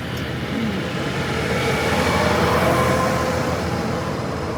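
Open-air tram pulled by a small tractor-like tow vehicle, running along a dirt road: steady engine and rolling noise with a faint whine, swelling louder for a couple of seconds partway through.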